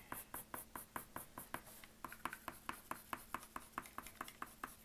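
Coloured pencil drawn in short, quick strokes across paper, faint, about five strokes a second.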